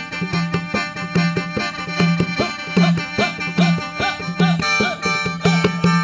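Khaen, the Isan bamboo free-reed mouth organ, playing several sustained notes at once over a steady drum beat, with short rising-and-falling pitch slides on top.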